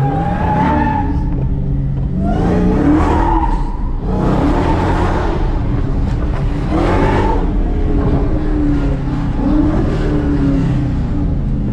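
A car doing a burnout: the engine revs hard in about five rising-and-falling surges while the tyres spin and squeal.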